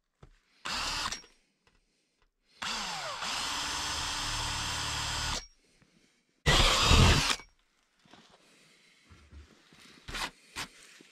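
18 V cordless drill with a twist bit drilling into a ribbed steel roof panel in three bursts: a short one, a steady run of about three seconds that winds up in pitch as it starts, and a louder short burst. Near the end a gloved hand brushes the metal with faint scuffs.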